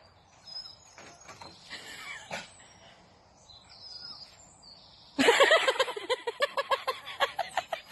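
Faint bird chirps, then about five seconds in a dog breaks into a rapid run of short, high-pitched yips, about seven a second, as it leaps up excitedly.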